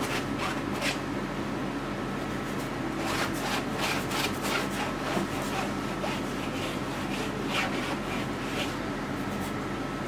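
Repeated short scrubbing and rubbing strokes of oil paint being worked onto a stretched canvas, thickest in the first second and again from about three seconds in, over a steady low hum.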